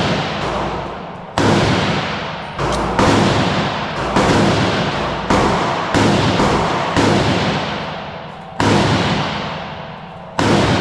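Glock 48 9mm pistol fired in slow aimed shots, about eight in all, spaced roughly one to one and a half seconds apart. Each sharp report is followed by a long, decaying echo.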